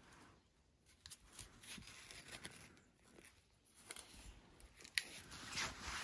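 Faint knocks, clicks and scraping of split firewood pieces being handled in a stacked woodpile, with one sharper click about five seconds in.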